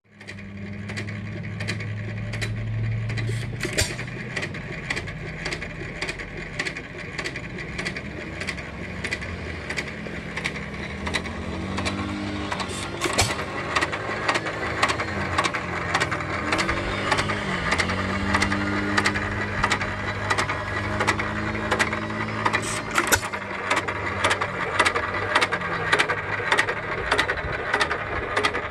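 1926 Economy hit-and-miss gas engine running, belt-driving a worm-gear reducer that turns a rotisserie spit: a steady run of evenly spaced clicks over a low drone that wavers in pitch.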